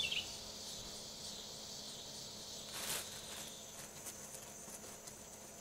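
Insects calling steadily in a high, even chorus. A bird's song note comes right at the start, and there is a short rustle about three seconds in.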